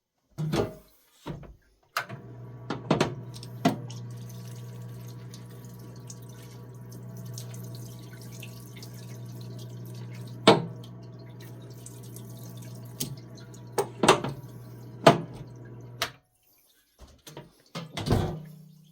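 Solvent parts washer's electric pump humming steadily, with solvent running and dripping into the tank. It starts with a click about two seconds in and cuts off a couple of seconds before the end. Sharp drips and knocks sound throughout, and a louder knock comes near the end.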